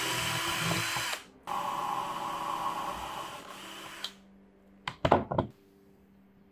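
Cordless drill running in two bursts, the first about a second long and the second longer and fading, as a small bit bores a hole through a metal bracket plate. A few sharp knocks follow about five seconds in, louder than the drilling.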